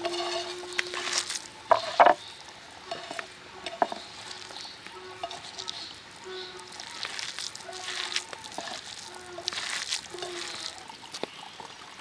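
Hands mixing and squeezing a moist chopped-vegetable bolani filling on a tray: irregular squelching and rustling, with a few sharp clicks about two seconds in.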